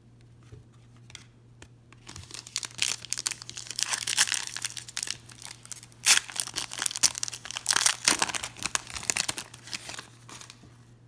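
A plastic wrapper on a pack of basketball trading cards being torn open and crinkled, in dense crackling bursts from about two seconds in until near the end.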